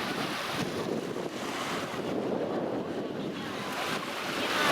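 Sea surf washing onto a beach in a steady rush, with wind on the microphone; the surge grows louder near the end as a wave comes in.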